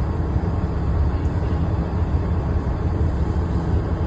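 Heavy truck engine running steadily, a continuous low rumble.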